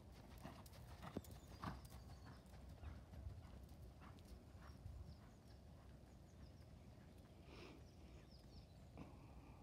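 Horse's hoofbeats on a sand arena surface, faint, with the clearest knocks in the first couple of seconds and fewer as the horse moves away.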